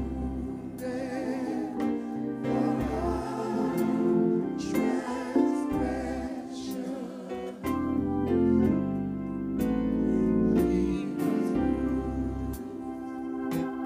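Organ music with held chords and a bass line that changes every second or two, and a voice singing over it.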